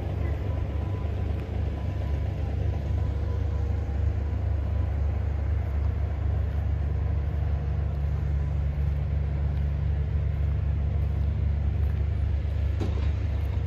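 Steady low rumble of an idling engine, with one brief knock near the end.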